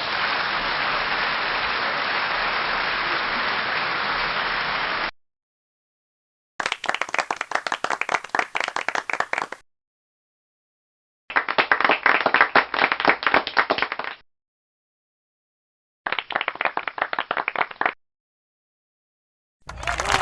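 A series of separate applause recordings with dead-silent gaps between them. First comes about five seconds of dense, even applause. Then three shorter rounds of sparser clapping follow, each two to three seconds long, with the single claps standing out. Another round of applause starts right at the end.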